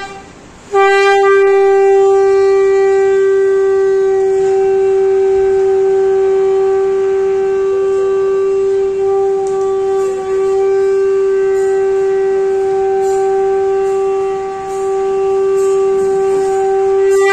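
Conch shell (shankh) blown in one long, steady blast of about sixteen seconds, starting under a second in after a short pause for breath. The tone thins and softens through the middle and grows brighter again near the end.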